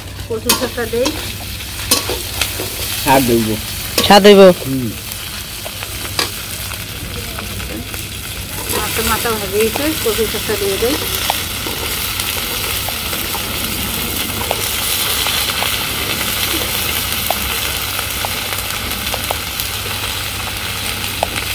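Taro greens with hilsa fish head frying in an iron karahi, sizzling steadily, with a metal spatula clicking and scraping against the pan. The sizzle grows fuller about halfway through, after more chopped greens go in. A voice cuts in briefly a few times in the first half, loudest about four seconds in.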